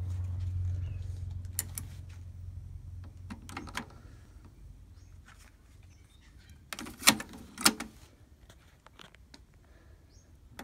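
Plastic clicks and clacks of a Luxman K-111 cassette deck being loaded: small clicks throughout, then two sharp clacks about two-thirds of the way in as a cassette goes in and the door shuts. A low hum fades out over the first few seconds.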